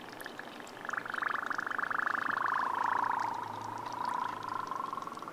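Air bubbling out through the small holes of a hollow plastic hatching toy egg held under water. It makes a rapid, pulsing gurgle that starts about a second in and runs on, its pitch dropping partway and then levelling off.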